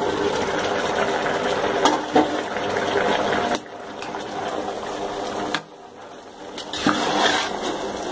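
Biryani rice boiling hard in its water in an open metal pot, a steady bubbling hiss, with a few knocks of a ladle against the pot. The sound drops abruptly about three and a half seconds in and again near six seconds.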